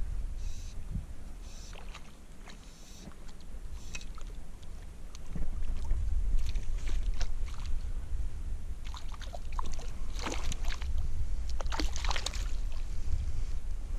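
A small hooked fish splashing at the lake's surface as it is played in, the splashing getting louder and busier near the end as it is scooped into a landing net. Wind rumbles on the microphone underneath.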